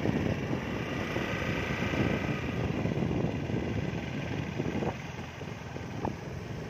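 Motor scooter running at low road speed, its engine hum mixed with wind rushing over the microphone; it eases off a little about five seconds in.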